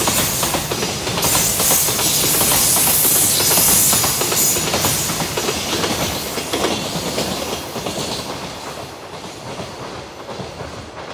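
Freight container train's flatcars rolling past, wheels clattering rhythmically over the rail joints with a hiss of steel on rail. The sound fades steadily over the second half as the end of the train passes and draws away.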